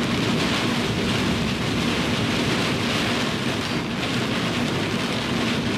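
Steady road noise of a vehicle driving at speed on a wet highway: tyres hissing on the wet pavement and wind rushing, over a low, even drone.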